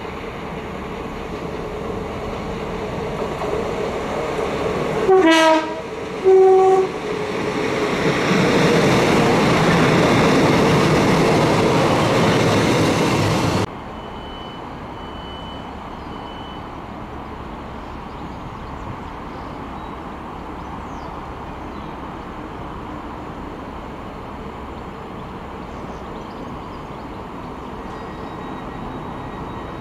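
Class 150 Sprinter diesel multiple unit sounding two short horn blasts as it approaches, then running past loudly. The noise cuts off suddenly about halfway through, leaving a lower steady hum of trains standing at the platform and three short high beeps.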